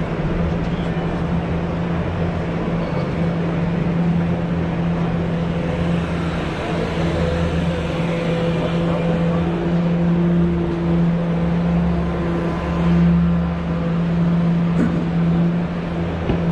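Busy indoor exhibition-hall ambience: a steady low hum with faint crowd chatter.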